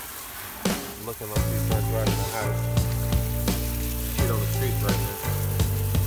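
Garden hose spray nozzle hissing as water sprays onto the car, under background music with a low bass line and a steady beat.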